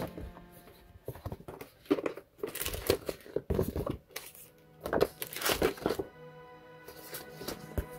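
Stiff printed paper sheets being bent, shuffled and slid over one another, rustling and crinkling in a run of strokes from about a second in until about six seconds, over steady background music.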